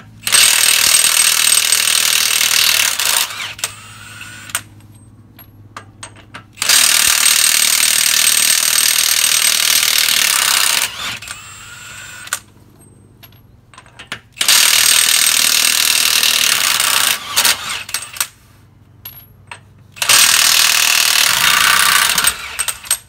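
Cordless impact wrench hammering lug nuts loose on a bus steer wheel: four runs of a few seconds each. Each run drops to a quieter, slower spin near its end as the tool eases off to back the freed nut out.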